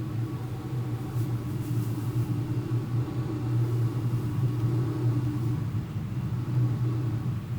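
Steady rumbling airflow noise on the onboard FPV camera of an ASH26 RC glider in flight, swelling and fading slightly, with a faint hiss about a second and a half in.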